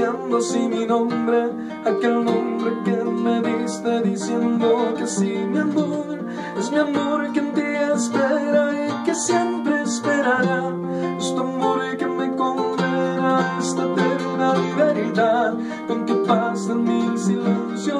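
Instrumental passage of a song: guitar chords ringing and changing every few seconds, with a crisp tick on the beat about once a second.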